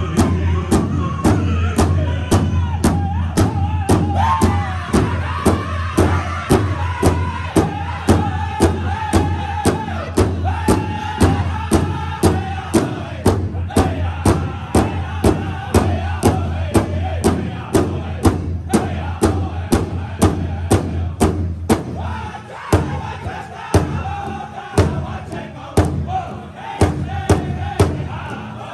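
Pow-wow drum group singing together in high, strained voices while beating a large shared hide drum in unison, about two strokes a second.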